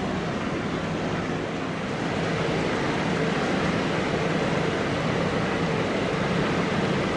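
Heavy vehicle running with a steady rumble and low engine drone, growing slightly louder about two seconds in.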